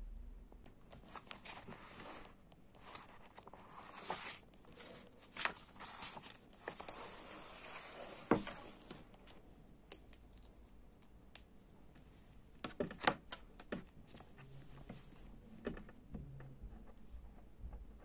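Paper and stationery being handled on a wooden desk: paper rustling and crinkling, with scattered light clicks and taps.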